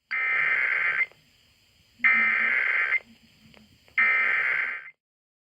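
Emergency Alert System SAME header: three bursts of digital data tones, each about a second long and a second apart, carrying the coded Required Monthly Test alert.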